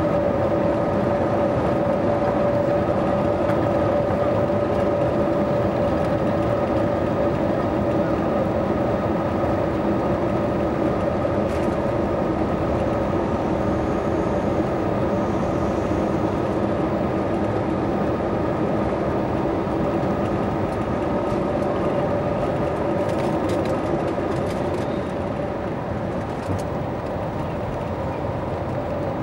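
Airbus A321neo jet engines at takeoff power, heard inside the cabin from a window seat over the wing: a steady, loud rush with a few held tones through the takeoff roll, easing a little near the end as the airliner lifts off.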